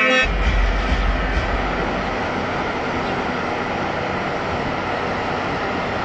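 Music cuts off just after the start, leaving a steady, even rushing noise with some low rumble in the first second.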